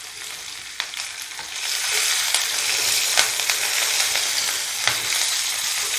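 Hot oil sizzling in an iron pan as slit green chillies go in with onion and whole spices (a tempering). The sizzle grows louder about a second and a half in, with the scrape and tap of a wooden spatula stirring.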